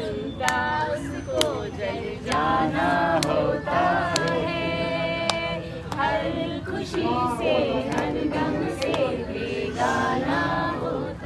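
Several women singing a song together, holding long notes, with sharp claps or taps every second or so.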